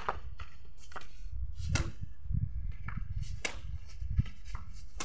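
Badminton rally: rackets striking a shuttlecock with sharp, crisp hits about every second and a half, with fainter taps between, over a steady low rumble.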